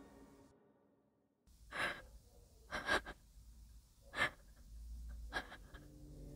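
Heavy breathing: about six sharp, ragged breaths and gasps, some in quick pairs, over a low rumble. Music fades out at the start into a second of silence before the breathing begins.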